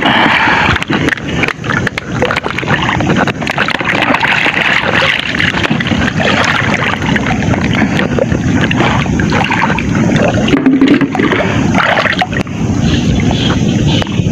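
Muddy floodwater sloshing and splashing around bodies wading chest-deep through a strong current, with a steady rush of moving water and frequent sharp splashes close by.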